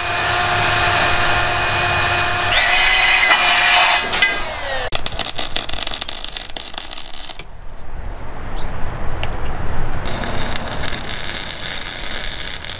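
MIG welding arc crackling on steel pipe, in one run about five seconds in and another from about ten seconds on. It is preceded by a steady several-toned hum that shifts up in pitch about three seconds in.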